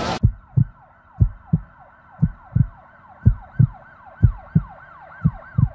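An edited-in dramatic sound effect: a muffled siren wailing in quick rising-and-falling sweeps, over paired low thumps about once a second like a heartbeat. It starts and cuts off abruptly.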